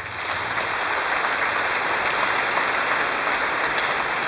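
Concert-hall audience applauding steadily, a dense even clapping.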